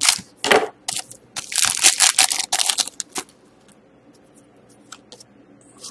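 A hockey card pack's wrapper being torn open and crinkled by hand: loud, quick tearing and crumpling for about three seconds, then only faint rustles.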